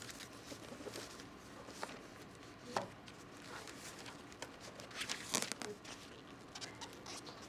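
Faint handling noise of a webbing strap being drawn around a stack of corrugated cardboard and fastened: soft rustling and scraping with a few light clicks, the clearest about three seconds in and a small cluster a little past halfway.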